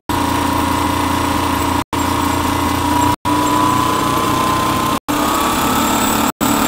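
A half-horsepower variable-speed electric motor spinning a bolt-on Franklin aircraft-engine alternator on a test bench, a steady hum and whine with the alternator charging under a landing-light load. From about three seconds in, the whine rises slowly as the speed is brought up. The sound cuts out for an instant every second or two.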